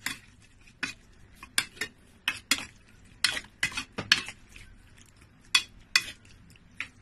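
A metal spoon stirring marinated chicken thigh pieces in a stainless steel bowl: irregularly spaced clinks and scrapes of the spoon against the bowl.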